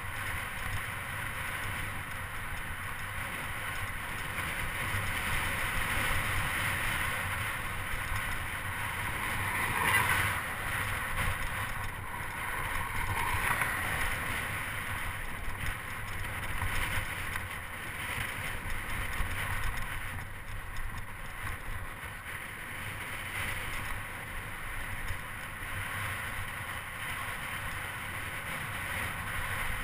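Steady wind rushing over the microphone of a camera on a moving touring bicycle, with a low road rumble underneath; it swells briefly about ten seconds in.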